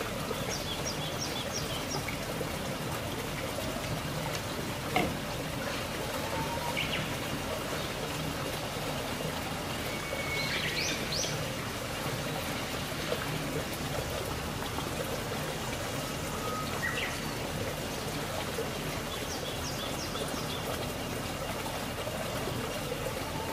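Steady hissing noise with small birds chirping briefly every few seconds. There is one light knock about five seconds in.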